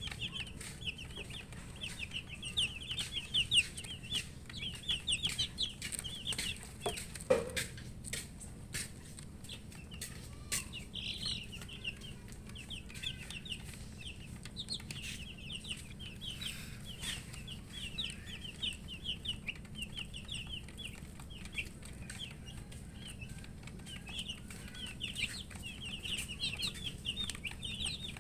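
A group of baby chicks peeping: many short, high chirps overlapping in quick succession, thinning out for a few seconds about halfway through, with a few light taps near the middle. The uploader puts the chirping down to thirst for drinking water.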